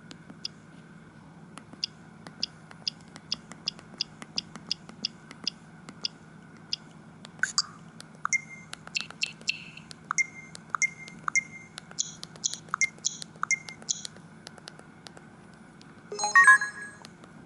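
Mobile phone keys being pressed: a run of sharp clicks about twice a second, then quicker presses with short high key beeps, and a brief burst of electronic phone tones near the end, typical of scrolling through a Samsung SGH-E250i's menu and starting a tone.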